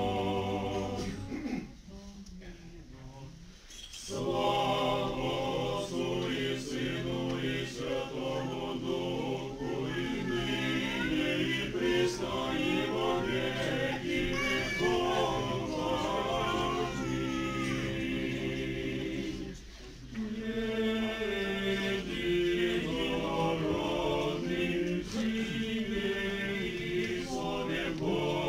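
Small church choir singing an Orthodox liturgical hymn a cappella, in sustained phrases with a short break shortly after the start and another about two-thirds of the way through.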